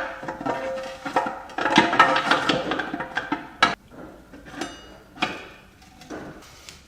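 Steel transmission parts clinking and knocking as the output shaft is fitted into a ZF 6HP26 automatic gearbox case, with a short metallic ring about four and a half seconds in.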